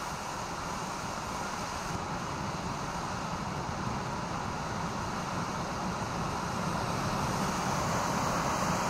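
Ground fountain firework spraying sparks with a steady hiss. It grows louder toward the end as the fountain flares into a bigger jet.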